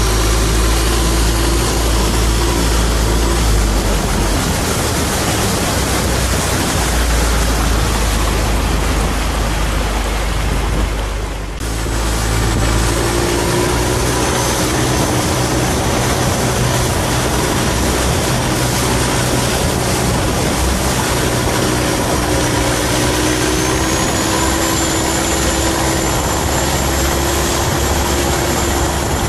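Long-tail boat's stern-mounted engine running steadily at speed, with the propeller wash and rushing water. The drone briefly dips about eleven seconds in.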